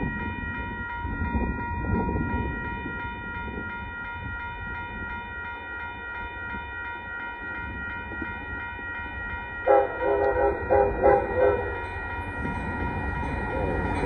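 Railroad crossing bell ringing steadily. About ten seconds in, the approaching Amtrak locomotive's horn sounds a quick run of about six short blasts, a playful horn show, and then the rumble of the train rises as it nears the crossing.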